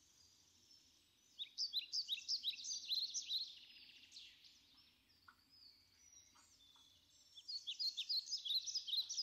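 A songbird singing in two bouts of rapid, high chirping notes, one starting about a second in and another near the end.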